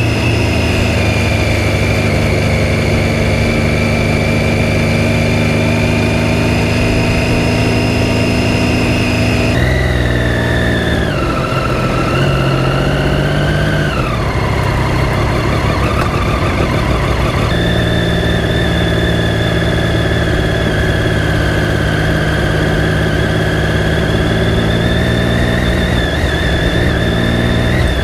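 Triumph Daytona 675 inline-three engine running at a steady pitch. Partway through it changes pitch in a few steps and drops off, then runs steady again.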